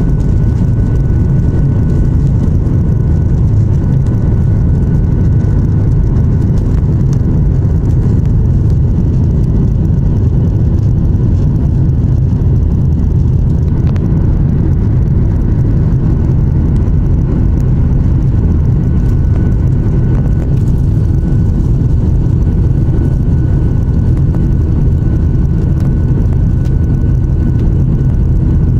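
Boeing 737 MAX 8 cabin sound while taxiing: the CFM LEAP-1B engines at low thrust give a loud, steady low rumble with a faint steady whine above it.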